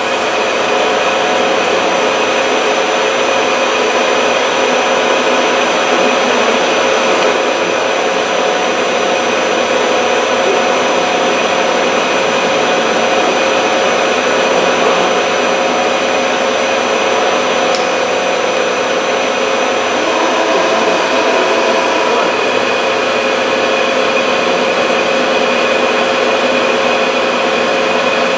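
Drilling machine running with coolant flowing over the spindle and drill bit: a steady whir with several held whining tones over a hiss.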